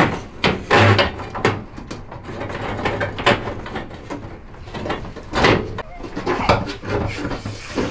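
Flexible corrugated plastic electrical conduit scraping and knocking against the sheet-metal inside of a van's body pillar as it is pushed through the holes. The scrapes and knocks come unevenly, some sharp, some longer rasps.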